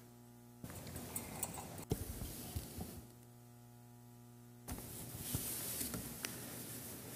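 Quiet church room tone: a faint steady electrical hum with soft rustling and a few small knocks between the sung parts of the liturgy.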